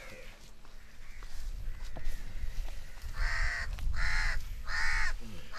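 A crow cawing four times in quick succession, harsh calls a little under a second apart, over a low rumble.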